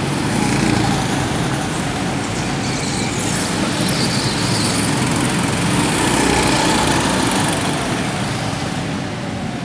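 Go-kart engines running as several karts lap the track, swelling as karts pass close, about a second in and again around six seconds in.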